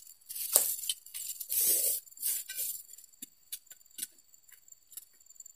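Oil palm fronds rustling and tearing in three rough bursts over the first three seconds as they are cut and pulled with a long pole sickle during pruning, then a few faint clicks and crackles.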